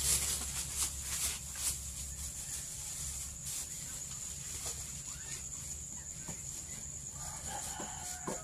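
Steady high-pitched insect drone, with a few faint knocks in the first two seconds and a brief faint chicken cluck near the end.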